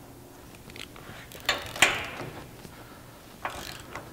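Metal clinks of a steel socket and wrench against the bumper bolts and bracket: a few sharp clicks, the loudest just under two seconds in with a brief ring, and another near the end.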